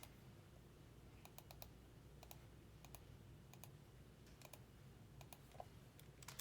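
Faint, scattered computer keyboard clicks: single keystrokes and quick pairs, spaced irregularly about half a second to a second apart, over a low room hum.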